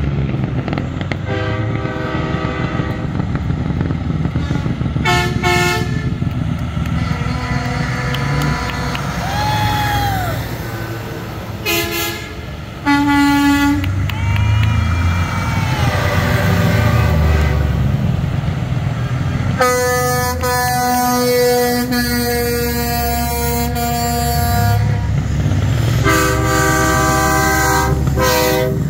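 Semi trucks' air horns blasting again and again as the rigs pass, over the low sound of diesel engines running. A few blasts bend down in pitch as a truck goes by. A little past the middle comes one long blast of several notes at once, lasting about five seconds.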